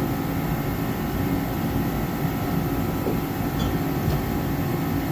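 Garage heater running steadily, a low rumble with a steady hum. Two faint metal clicks about three and a half and four seconds in, as wrenches are set in the drawer.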